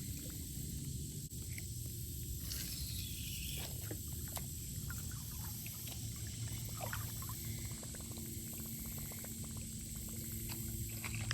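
Creek-side outdoor ambience while a lure is cast and retrieved: scattered small clicks and light water sounds over a low rumble and a steady high hiss.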